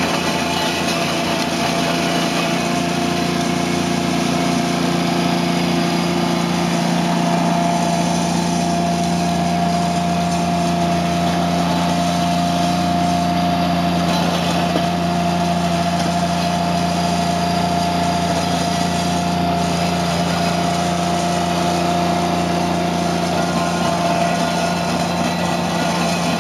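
Toro Dingo compact utility loader's engine running steadily while it drives a Harley power box rake, whose spinning roller churns and levels loose gravel.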